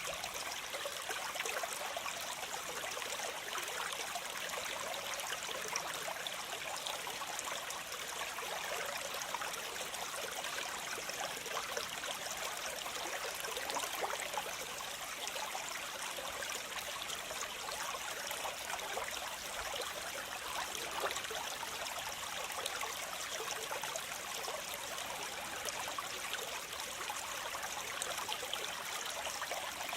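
Waterfall: water falling and splashing over rocks in a steady, even rush, mostly in the middle and high range.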